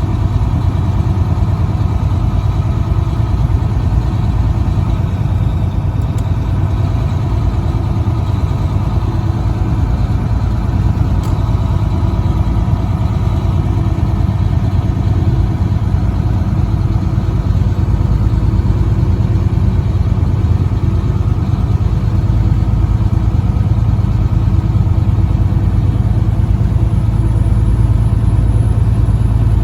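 Truck engine running with road noise while driving: a steady, low-pitched drone that grows slightly louder near the end.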